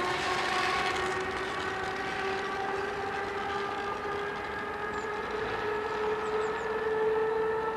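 CFL class 3000 electric locomotive's traction whine, several tones together rising slowly and evenly in pitch as it picks up speed, over the rush of the train on the rails.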